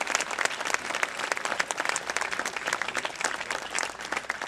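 Large crowd applauding: dense, sustained clapping from many hands.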